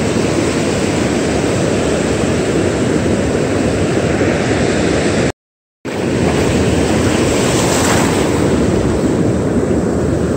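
Steady rush of surf breaking and washing up the beach, mixed with wind on the microphone. The sound cuts out completely for about half a second a little past the middle, then resumes.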